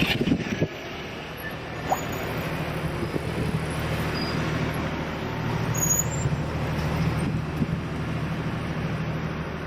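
A large engine running steadily with a low hum, over a general wash of street-traffic noise.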